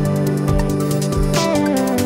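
Electronic background music: held synth notes that change pitch in steps over a steady low beat.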